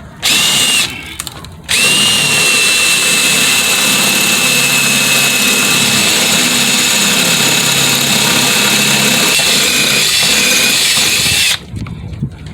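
Electric drill boring a hole in the wall for a plastic wall anchor: a short burst about half a second in, then a steady run with a constant whine for about ten seconds that stops shortly before the end.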